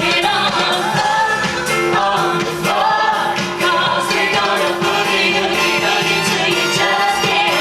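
Music with a group of voices singing over a full backing.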